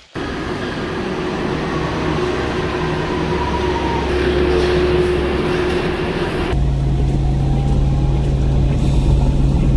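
Vehicle running with a steady rumble and low hum, heard in two stretches joined by a sudden cut about six and a half seconds in; the second stretch has a stronger low hum.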